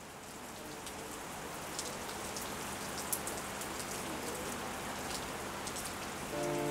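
Steady rain falling, with scattered sharp drips of single drops. Sustained music tones come in near the end.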